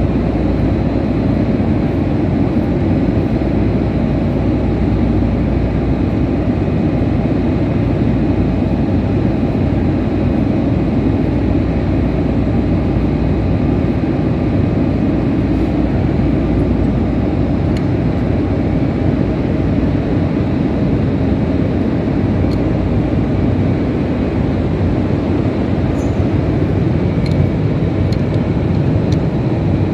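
Steady, loud drone of running heavy machinery, with a few faint metallic clicks near the end.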